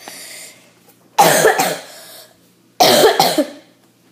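A girl coughing, two loud harsh coughs about a second and a half apart.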